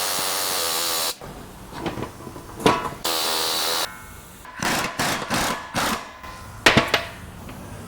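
A power tool drives the screw of a wheel-bearing press tool, forcing a new front wheel bearing into the steering knuckle. It runs in several bursts, each about a second or shorter, with a few sharp knocks near the end; the bearing is not yet fully seated.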